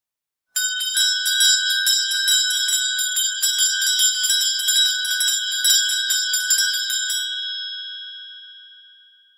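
A Christmas bell rung rapidly, about five strikes a second, each stroke over the same ringing high tones. The strokes stop near the end and the bell rings out and fades.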